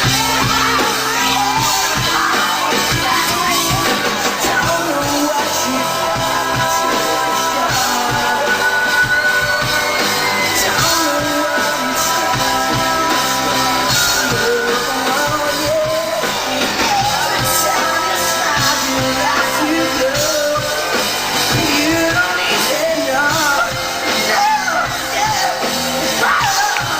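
Live band music with wordless sung runs and yelling over the accompaniment, in a reverberant hall.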